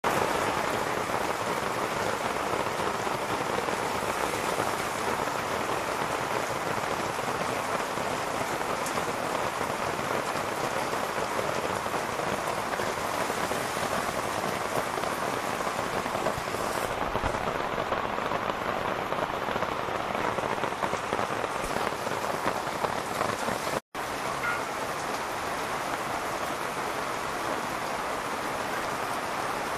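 Heavy rain falling steadily on waterlogged ground and palm foliage, a constant even downpour, with a momentary break about 24 seconds in.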